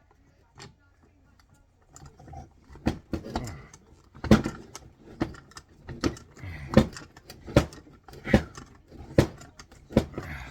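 Repeated sharp metal knocks, about one a second, starting about two seconds in and getting louder, as tools work on the seized bolts of a large steel mining plug receptacle.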